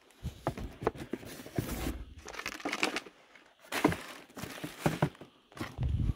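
Cardboard boxes and black plastic bin bags being rummaged through by hand: irregular crinkling and rustling with sharp little knocks.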